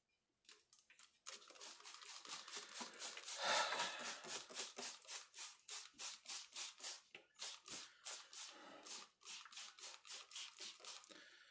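A broad brush swept rapidly back and forth across watercolour paper, wetting it with a wash, about four or five faint scratchy strokes a second. The strokes are loudest around the fourth second.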